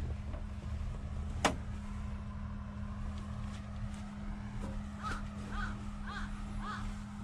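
CAT 938K wheel loader's diesel engine idling with a steady low hum, heard from the cab, with one sharp click about one and a half seconds in. Crows cawing repeatedly from about five seconds in.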